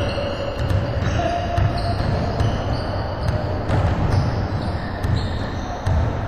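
Basketball bouncing repeatedly on a hardwood gym floor during play, with short high-pitched squeaks scattered through.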